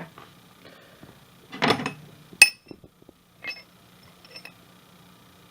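Loose metal hand tools being rummaged in a toolbox: a rattle, then one sharp ringing metal clink, then a few lighter clinks.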